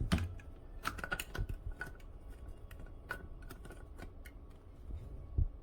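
Irregular plastic clicks and taps from a portable blender's screw-on lid being twisted open and the cup being handled.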